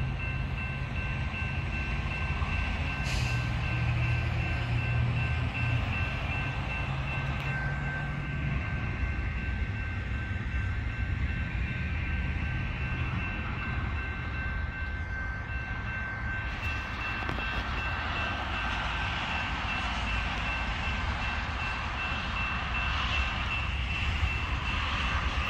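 Railroad grade-crossing warning bell ringing steadily, over the low rumble of approaching diesel locomotives, which swells in the last several seconds.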